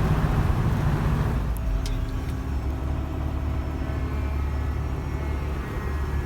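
A vehicle engine running steadily with a deep, even rumble, with a few faint ticks about two seconds in.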